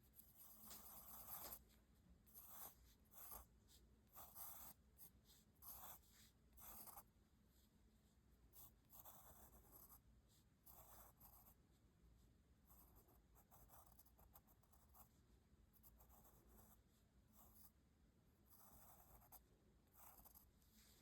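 Graphite pencil drawing on paper: a run of faint, short scratching strokes of varying length, some quick and some drawn out.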